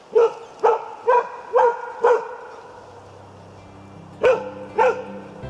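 Young Jämthund moose dog barking at moose behind a fence: a bay at the moose. It gives five sharp barks about two a second, pauses, then barks twice more near the end.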